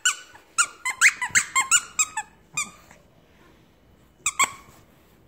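Squeaker in a plush mallard duck dog toy squeaking as a Yorkshire terrier bites and tugs at it. There is a quick run of about a dozen short squeaks over the first few seconds, then two more near the end.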